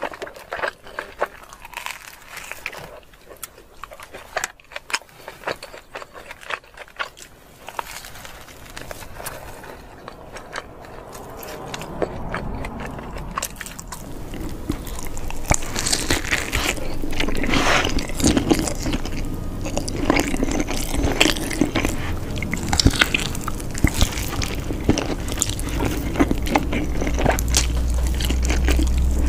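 Close-miked pizza eating: biting, wet mouth clicks, chewing and crust crunching. About halfway through the sound gets louder and fuller as a crust is torn and bitten, with a low steady hum underneath.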